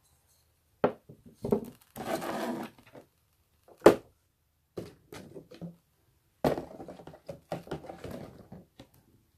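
Handling noises: a few sharp knocks, the loudest about four seconds in as a plastic owl coin bank is set down on a table, and two stretches of crinkling and rustling from clear plastic packaging being handled.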